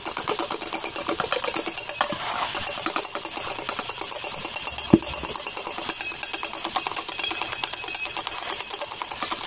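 Electric hand mixer running, its beaters clattering rapidly and evenly against the bowl, with one sharp knock about halfway through.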